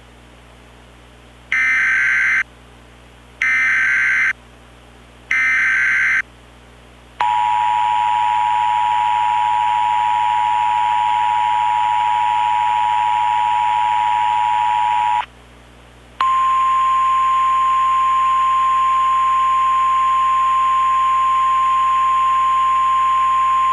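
Emergency Alert System header for a Special Marine Watch. Three short, raspy SAME data bursts come about two seconds apart, then the two-tone EAS attention signal holds for about eight seconds. After a brief pause a steady single-pitch NOAA Weather Radio alert tone sounds, all over a faint background hiss.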